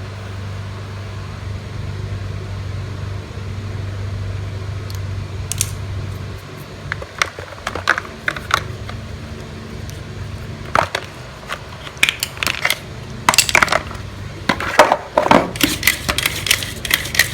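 Small hard parts of a lawnmower recoil starter clicking and clattering as they are handled, a few scattered ticks at first and then a busier run of clicks and knocks in the last few seconds. A steady low hum runs underneath.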